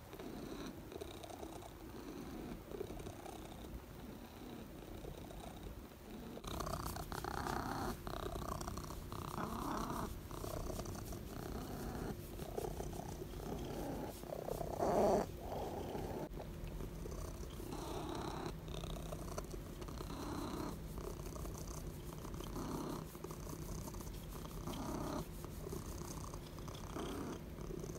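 Domestic long-haired cat purring steadily while being scratched under the chin, a sign that it is content. The purr rises and falls regularly, grows stronger about a quarter of the way in, and has one brief louder swell about halfway.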